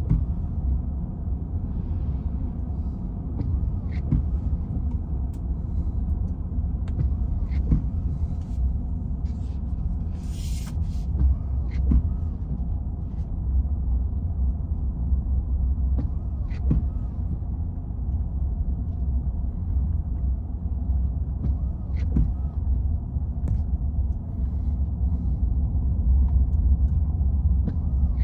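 Low, steady road rumble inside a moving vehicle's cabin as its tyres run on wet pavement, with scattered light clicks and a brief hiss about ten seconds in.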